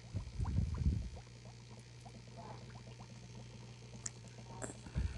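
Small water plinks and trickles in a turtle tank, with a low rumble about a second in and a couple of sharp clicks near the end, over a steady low hum.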